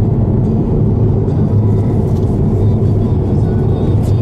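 Steady low rumble of tyre and engine noise inside a car cruising on an expressway.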